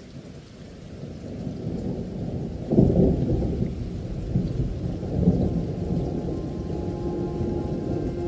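Rumbling thunder over rain, coming in suddenly and building, with the loudest thunder roll about three seconds in. A low held synth tone of an ambient music track enters near the end.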